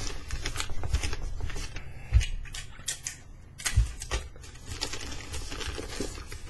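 Newspaper wrapping crinkling and crackling as it is folded and creased around the end of a gift box, a quick run of small clicks and rustles. Two dull thumps stand out, about two and four seconds in.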